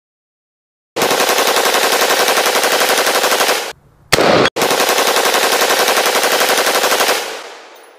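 Rapid automatic rifle fire in long, fast strings of shots. A long string starts about a second in, breaks off near four seconds for a short separate burst, then a second long string runs on and fades away near the end.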